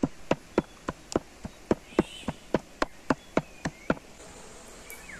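A cleaver chopping meat and fat into mince on a wooden board: about fifteen even strikes, three to four a second, stopping about four seconds in.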